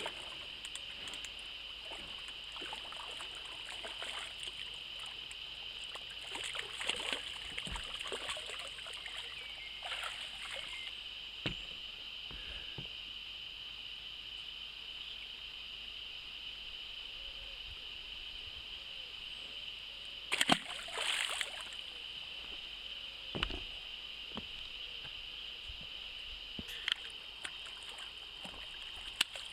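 Handling and release of a common carp at the water's edge: scattered knocks and short splashy scuffles, the loudest about two-thirds of the way through, and a splash near the end as the fish goes back into the lake. A steady faint high tone runs underneath.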